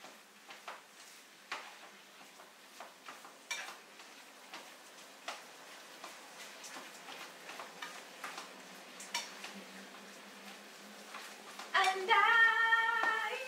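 A utensil scraping and tapping in a frying pan on the stove, making irregular clicks every second or so. Near the end a cat meows loudly in one long call, the loudest sound here.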